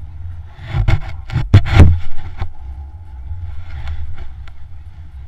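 Wind rumbling on the camera microphone, with a cluster of loud knocks and scrapes about one to two seconds in and a lighter one near four seconds.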